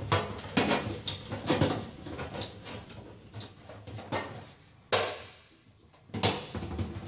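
Metal parts clicking, clinking and rattling against a metal fuel tank as a C-shaped, stud-fitted retainer ring is worked into the tank's pump opening by hand, with a louder single knock about five seconds in.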